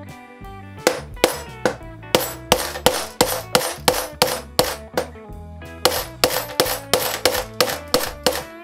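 Small hammer striking the top of an awl to drive its point through a sheet into a wooden board and punch a hole: a quick series of sharp knocks, about three a second, with a short pause near the middle. Guitar background music plays underneath.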